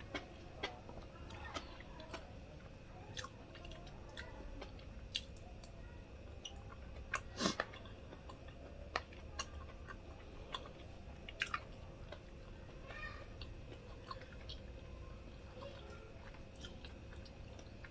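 A person chewing and eating quietly, with scattered small wet mouth clicks and smacks; one louder click about halfway through.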